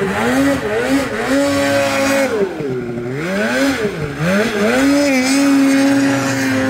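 Snowmobile engine revving up and down in quick throttle bursts as the sled is thrown across deep powder. It is held at high revs for about a second a little after the start, and again near the end.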